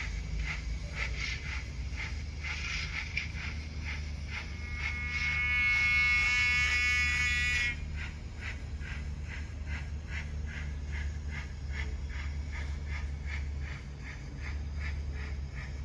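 Hornby OO gauge Rocket model's DCC sound decoder playing steam exhaust chuffs in an even rhythm over a low hum. About five seconds in, its horn sounds for about three seconds and cuts off; this horn is a hunting-horn call recorded on a trumpet, and it is the loudest sound in the clip.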